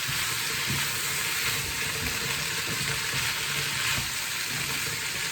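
Vegetables and meat sizzling steadily as they stir-fry in a pan, a continuous hiss with a few light clicks of a utensil stirring.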